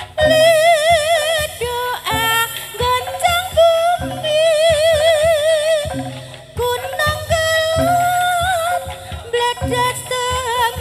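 Javanese jaranan accompaniment: a high female voice sings an ornamented melody with heavy, wavering vibrato over regular low drum strokes.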